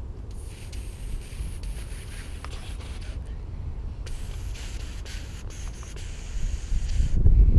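Wind rumbling on the camera microphone, gusting much louder near the end, with a rubbing hiss that comes and goes in two stretches.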